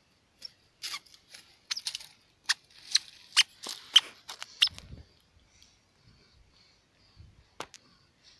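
Dry leaves and plant litter crackling and snapping underfoot, a quick irregular run of sharp crackles, then a low bump about five seconds in and only a few faint ticks after.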